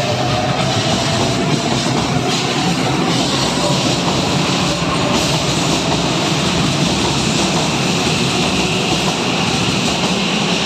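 Keihan 9000-series electric train pulling out of an underground platform and picking up speed past the listener. The motor whine is rising at the start and fades into a steady rumble of wheels on rail, and a high steady whine comes in during the second half as the last cars go by.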